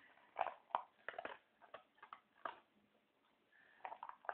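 English Springer Spaniel eating from a plastic bowl: irregular crunches and sharp clicks as it chews its food and its mouth works against the bowl, with a short lull about two-thirds of the way through.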